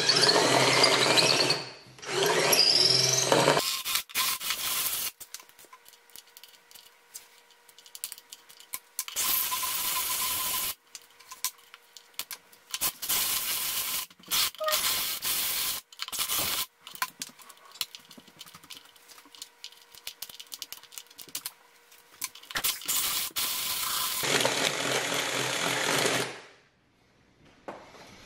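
Cordless DeWalt drill boring out the drawer lock of a 1914 National Cash Register, run in repeated bursts on and off the trigger. A wavering squeal comes from the bit on the metal in the first few seconds. The drilling stops near the end.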